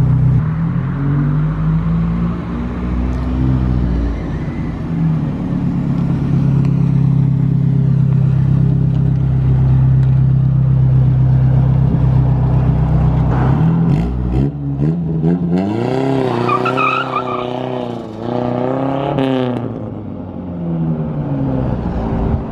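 Mini pickup truck's engine idling steadily, then revving up in two rising pulls, as if through a gear change, as the truck pulls away and fades.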